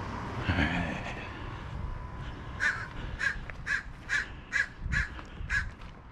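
A bird calling outdoors: a run of seven short calls, about two a second, starting a couple of seconds in.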